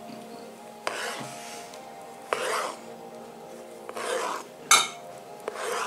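Chef's knife slicing through a peeled avocado half and meeting a plastic cutting board, about five separate cuts, each a short knock and scrape.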